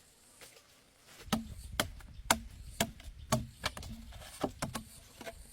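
Repeated sharp chopping blows, about two a second, starting about a second in, each with a dull thud under it.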